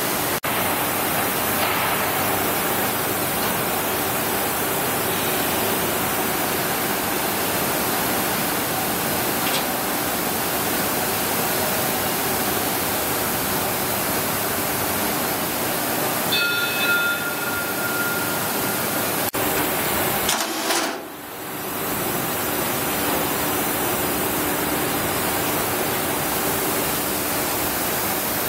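A steady loud hiss with a faint low hum under it. Just past the middle, a brief high ringing tone sounds for about two seconds, and the hiss drops away for about a second soon after.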